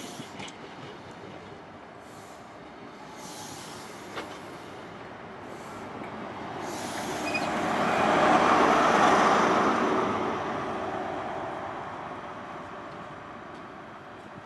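InterCity 125 High Speed Train pulling out past the platform: the coaches run by, then the Class 43 diesel power car passes close, its engine sound swelling to its loudest about eight to ten seconds in and fading as the train moves away.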